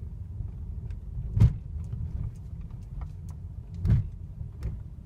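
Inside the cabin of a Mercedes-Benz W212 E-Class driving over bumps: a steady low road rumble with suspension thumps, the two loudest about a second and a half and four seconds in. Nothing but the thumps is heard: no creak from the dashboard under the windscreen, now cured.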